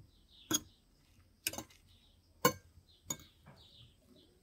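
Four sharp clicks of kitchenware being handled, roughly a second apart, the third the loudest, with faint high chirps in between.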